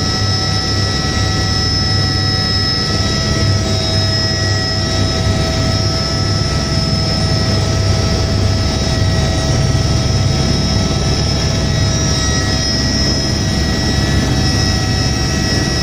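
Turbine helicopter running, heard from inside the cabin: a steady high whine over a low pulsing throb of the rotor, holding even throughout.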